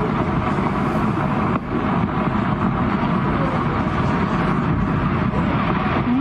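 Landslide of rock and earth pouring down a steep forested slope: a steady, dense rumble of debris crashing and sliding.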